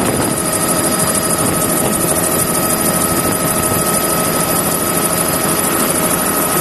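Helicopter running steadily, heard from aboard: a dense rotor noise with a rapid fine chop and a constant high turbine whine.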